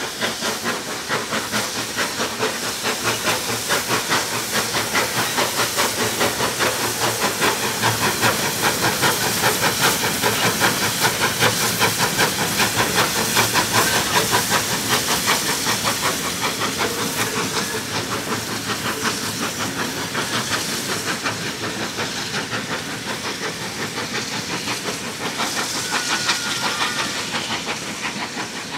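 NSW C32-class steam locomotive 3237 passing under steam, its exhaust chuffing in a fast, even beat with steam hiss. It grows to its loudest about halfway through as the engine goes by, then eases as the carriages roll past.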